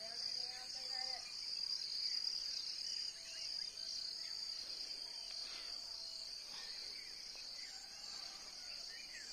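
Outdoor insect chorus: a steady, high-pitched chirring that runs unbroken, with a few faint bird calls scattered over it.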